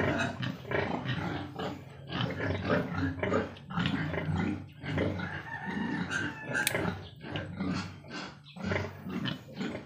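Newborn piglet squealing over and over as its needle teeth are clipped with nippers, with one longer squeal about halfway through. A sharp click comes shortly after the long squeal.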